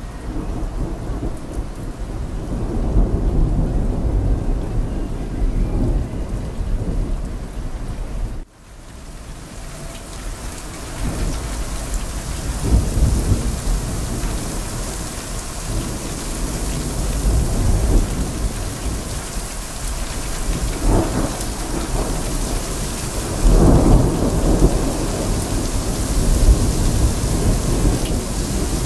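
Steady rain with thunder rumbling low several times. The sound drops out briefly about eight seconds in, and afterwards the rain's hiss is brighter.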